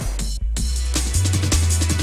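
Background music with a heavy bass line and a drum beat, with a brief drop-out just before half a second in.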